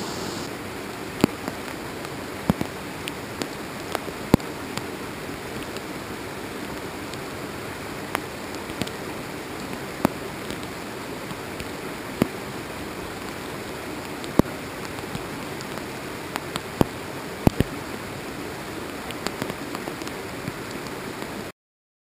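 Steady rush of a river with raindrops striking close to the microphone as irregular sharp ticks; the sound cuts off suddenly shortly before the end.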